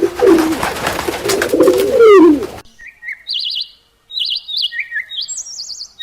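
Low cooing bird calls over background noise, then after a sudden cut about two and a half seconds in, a small bird's high chirping in short, quickly warbling phrases.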